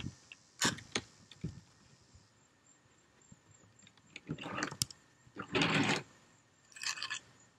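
Trowel scraping and knocking against a concrete stepping stone while spreading tile mortar: a few sharp knocks in the first second and a half, then scrapes about four and a half, five and a half and seven seconds in, the one near five and a half seconds the loudest and longest.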